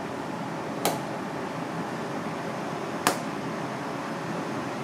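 Pieces of raw red clam (akagai) meat slapped down one at a time onto a plastic cutting board: two short, sharp slaps about two seconds apart, over steady background noise.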